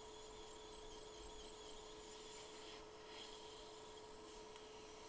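Near silence: a faint steady hum, with soft scraping of a metal tool over a BGA reballing stencil on a phone logic board.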